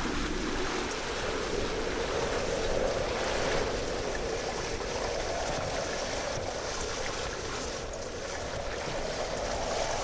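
Steady rush and wash of sea water along the hull of a wooden sailing pirogue under way.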